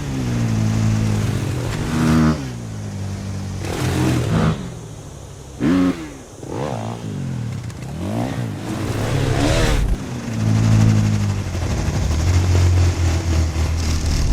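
Motocross bike engine sound effect: the engine revs up and down over and over, its pitch dropping each time it backs off, with a quieter lull near the middle.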